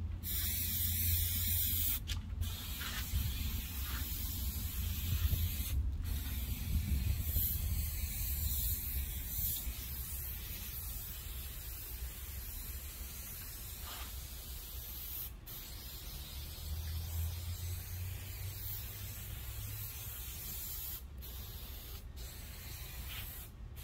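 Aerosol can of spray adhesive hissing in long sprays, broken by a few brief pauses, as glue is laid onto headliner fabric.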